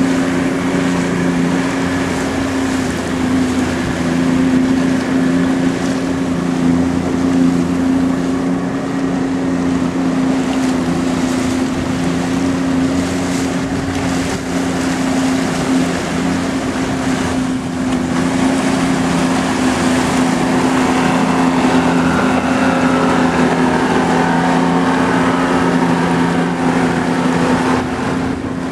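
Motorboat engine running under way at a steady speed, a constant low drone, mixed with wind buffeting the microphone.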